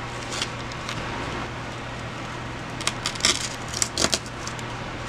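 Crisp rustling and light clicks of ribbon and deco-mesh bows and artificial flowers being handled as the bows are pushed into a foam centerpiece base, a few near the start and a busier cluster about three to four seconds in.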